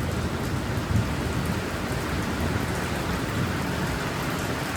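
Steady heavy rain falling, with a low rumble underneath from thunder.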